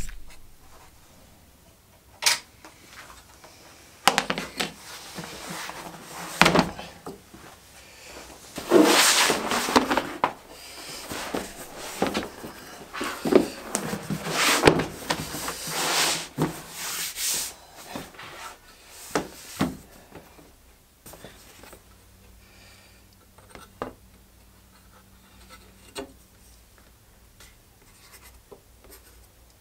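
A large leather hide being handled and unrolled on a workbench: rustling, sliding and flapping, with a few sharp knocks. After that it goes quieter, with only faint scratches and ticks.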